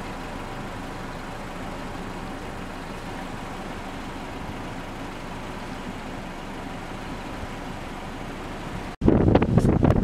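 Steady hum of a vehicle's engine running, with a few faint constant tones. About nine seconds in it cuts off abruptly, and loud, gusting wind buffets the microphone.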